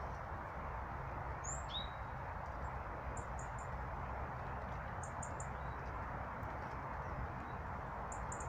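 Small songbirds giving short, very high chirps in quick runs of three or four, three times, and one downward-sliding call between one and two seconds in, over a steady background rush.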